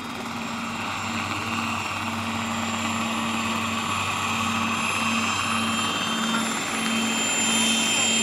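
Large-scale electric RC Bell 47 helicopter flying low and coming in to a hover: a steady high whine from the electric drive sits over the rotor noise, growing louder as it approaches.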